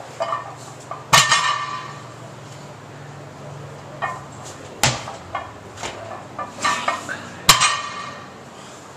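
Loaded barbell clanking down on the floor during power cleans: three sharp metallic impacts with a brief ring, about a second in, near five seconds, and near the end, with lighter knocks of the plates between.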